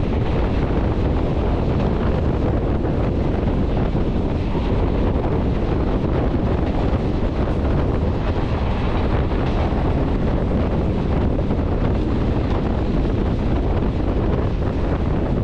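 Wind rushing over a microphone held out of a moving train, with the train's steady rumble underneath. The noise stays level throughout, with no horn or distinct clicks.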